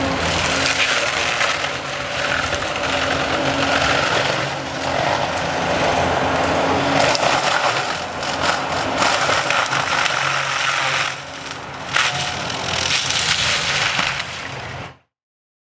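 Excavator diesel engine running under load while a disc mulcher with a 58-inch steel disc grinds through wood, a dense crunching and splintering over the engine's steady hum. It cuts off abruptly near the end.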